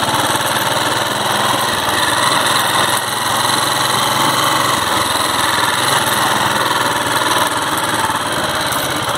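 Small motorcycle engine running steadily while the bike rides along in gear, just after a gear change.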